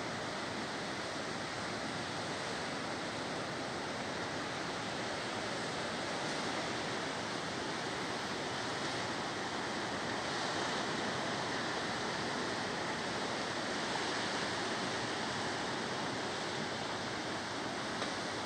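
Sea surf washing in over a rocky shore and beach, a steady rush of breaking waves that swells a little about halfway through.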